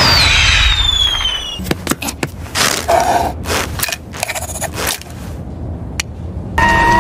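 Cartoon sound effects: a sharp bang with a high whistle falling in pitch, then a run of uneven clattering knocks and a single click near the end.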